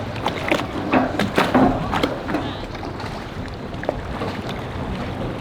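Boat engine idling in a steady low drone, with wind noise on the microphone and a few short sharp sounds in the first two seconds.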